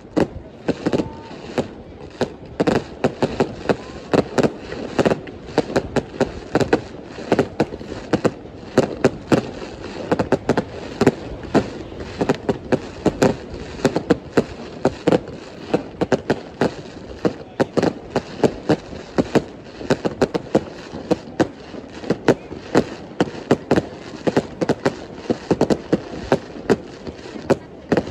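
Fireworks display bursting overhead: a dense, irregular string of sharp bangs and crackles, several a second at times.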